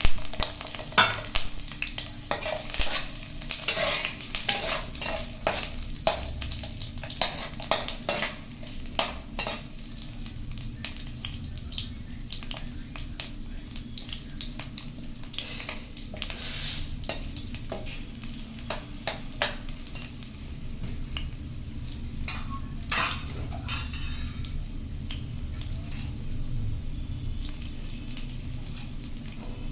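Potato pieces frying in oil in a kadai, sizzling steadily on low heat, while a spatula stirs them and knocks against the pan. The knocks are frequent through the first ten seconds, then come only now and then.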